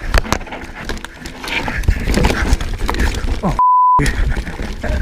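Mountain bike rattling and knocking down a rough trail, tyres rumbling over dirt and roots, with wind on the microphone. A little past halfway a steady 1 kHz bleep tone replaces all other sound for about half a second.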